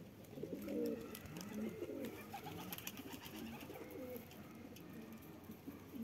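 Domestic pigeons cooing, a run of low rolling coos that rise and fall one after another. This is a cock's courtship cooing, directed at a hen ready to mate.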